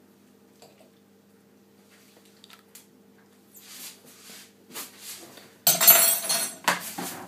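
A man coughing and spluttering out a mouthful of dry ground cinnamon: a few short breaths, then a loud run of harsh coughs about two seconds from the end.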